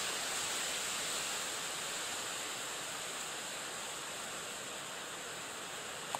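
Wind blowing through reeds, a steady rushing hiss. A brief click near the end.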